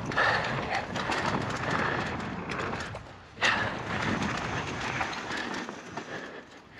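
Polygon Siskiu N9 mountain bike riding down a dirt flow trail: tyres rolling and the bike rattling and clicking over the ground, with wind rushing on the microphone. The noise dips briefly about three seconds in and comes back with a sharp knock.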